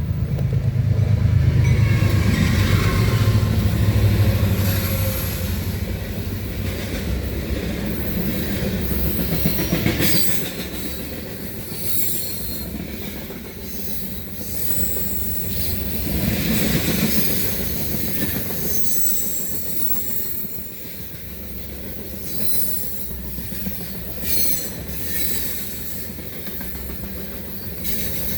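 CSX freight train passing close by: a deep rumble, loudest in the first few seconds, then the cars rolling past with wheels clacking over rail joints and squealing high at times.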